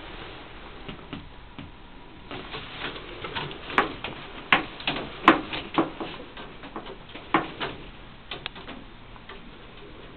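Irregular sharp clicks and taps, a dozen or so, bunched and loudest in the middle, as a cat moves about on a windowsill under venetian blinds.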